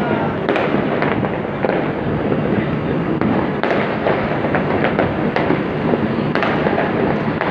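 Many fireworks going off at once at a distance: a dense, unbroken crackle of pops and bangs, with a few sharper bangs standing out.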